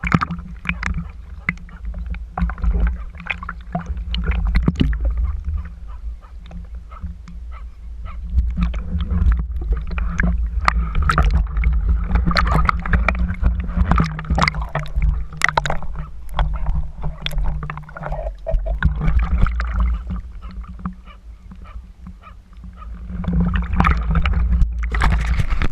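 Water sloshing and gurgling around a GoPro in its waterproof housing, with many scattered clicks and knocks over a steady low rumble. The level swells and falls every few seconds.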